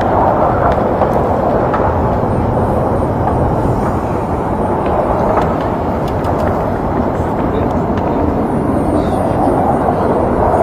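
Steady running noise of a heavy vehicle's engine, with no distinct events standing out.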